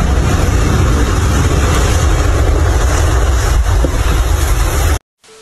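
Loud continuous rumble of a concrete cooling tower collapsing in a demolition, cut off abruptly about five seconds in.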